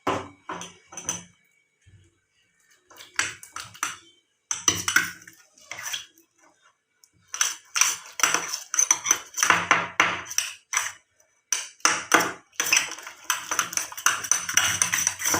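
Freshly made slime being kneaded and squeezed by hand, giving sticky clicking and squelching noises. These come in irregular runs with short pauses and are busiest in the second half.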